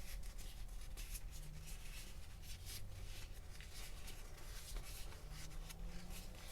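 Polyethylene waterproof pistol bag being handled and folded, its plastic rustling with many small irregular crackles.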